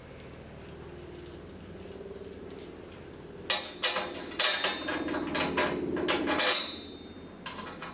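Small metal hardware clinking and rattling as nuts, bolts and washers are handled: a run of light metallic clicks and clatter starting about halfway through, after a faint low hum.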